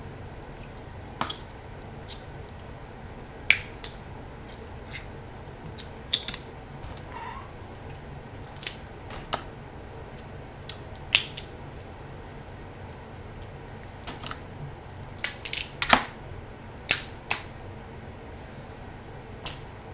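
Snow crab leg shells cracking and snapping as they are broken apart, with sharp cracks at irregular intervals and a quick run of louder ones about three quarters of the way in.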